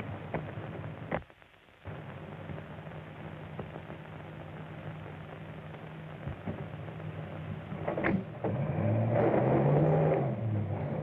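A car engine running steadily, then revving up and dropping back about nine seconds in. There is a brief drop-out about a second in.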